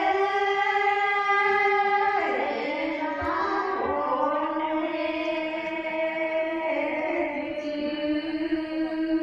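A group of women chanting a Karen hta, a traditional sung poem, in unison, holding long, drawn-out notes. The pitch drops a step after about two seconds and is then held again.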